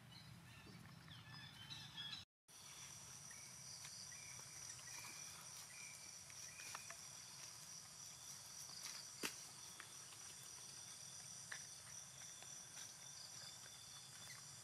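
Faint outdoor ambience with a steady high-pitched insect drone that starts after a brief dropout about two seconds in. Faint ticks are scattered through it, with one sharper click about nine seconds in.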